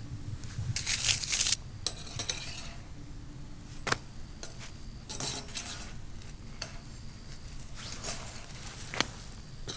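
Metal cookware being worked over a campfire: a utensil scraping and stirring in a pan in several short bursts, with sharp clinks about four and nine seconds in.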